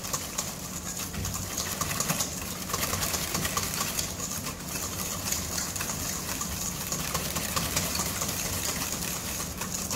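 Wire balloon whisk beating egg yolks and brown sugar in a stainless steel bowl: a rapid, steady clatter and scrape of the wires against the metal, over a low hum. The yolks and sugar are being whisked without pause so they do not go lumpy, the first stage of a sabayon.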